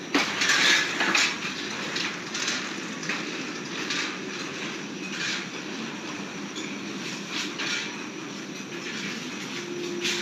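A child's bicycle rattling and clacking as it is ridden over patio tiles, a string of irregular knocks over a steady hiss, loudest in the first second or so.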